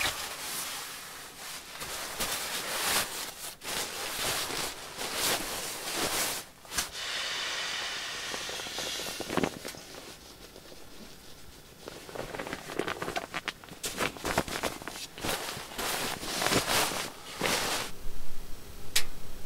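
Rustling and swishing of a nylon sleeping bag being unrolled and spread out over a sleeping pad, in a run of short, irregular swishes with a smoother sliding hiss partway through.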